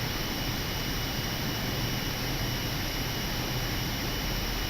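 Steady flight-deck noise of an Airbus A319 on final approach: an even hiss and rumble of airflow and engines, with a thin steady high tone.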